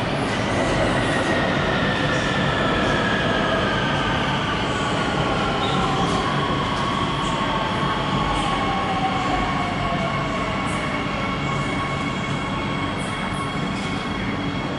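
CRRC Changchun Type A metro train entering the station, with steady running noise and a whine from its traction motors that falls slowly in pitch over about ten seconds as it brakes.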